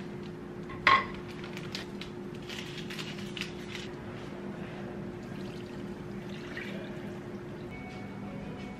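Water being poured, splashing into a frying pan that holds a block of instant ramen noodles, over a steady low hum. A single sharp clink about a second in is the loudest sound.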